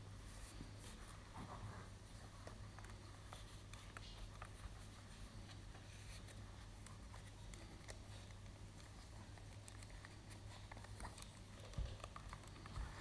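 Faint rustling and small clicks of hands handling a ball-jointed doll and its cloth outfit while dressing it, with two soft knocks near the end.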